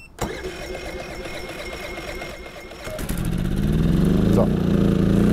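EcoFlow Smart Generator's petrol/LPG dual-fuel engine being electric-started on bottled gas with air still in the gas line. It cranks for about three seconds, catches, rises in pitch and settles into steady running.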